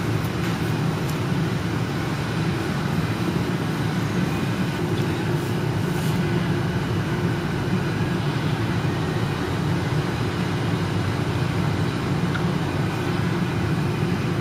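Steady low-pitched background hum and rumble with no distinct events, unchanging throughout.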